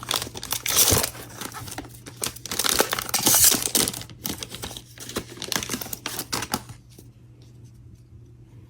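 Foil wrapper of a hockey card pack being torn open and crinkled, in an irregular crackle that stops about seven seconds in.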